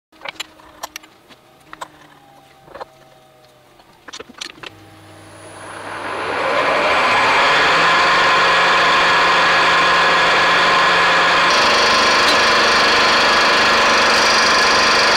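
A few sharp clicks and knocks, then a milling machine's motor starts about five seconds in. The fly cutter comes into the cut and builds to a loud, steady cutting noise as it faces off the worn vice ways of a power hacksaw frame. The sound gets brighter about twelve seconds in.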